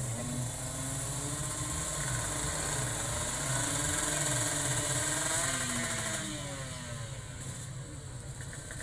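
Two-stroke drag motorcycle running hard, its engine pitch climbing and growing louder, loudest about four to five seconds in, then dropping and fading as it passes by.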